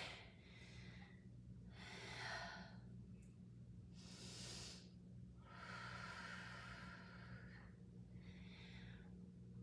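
A woman's slow, faint breathing: several soft breaths in and out, over a faint steady hum.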